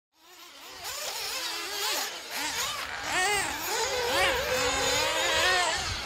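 1:8-scale off-road RC buggy running on a dirt track, its small engine revving up and down again and again as the throttle opens and closes. The sound fades in over about the first second.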